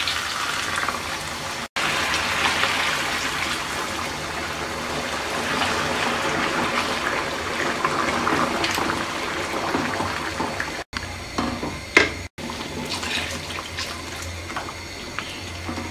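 Water poured from a glass into a pan of thick spiced potato curry, splashing and filling as it goes in for the gravy. The pouring breaks off briefly a few times.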